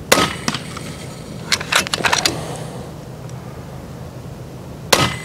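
Two shots from a .30 calibre FX Impact MKII PCP air rifle, about five seconds apart. Each is a single sharp crack with a short ring after it. Between them comes a quick cluster of sharp mechanical clicks as the side lever is cycled for the next shot.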